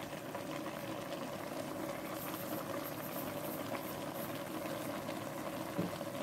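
Pan of unripe plantain and vegetables simmering on the stove, a steady bubbling crackle.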